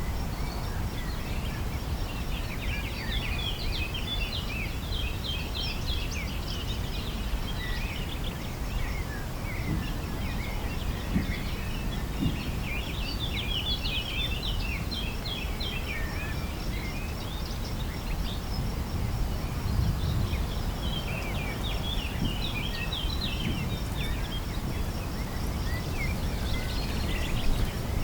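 Common blackbird singing: bouts of quick, high twittering notes a few seconds long, with pauses between them, over a steady low rumble.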